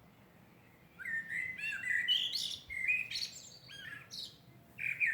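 Songbird singing: after about a second of quiet, a varied run of chirps and warbled phrases with short pauses between them.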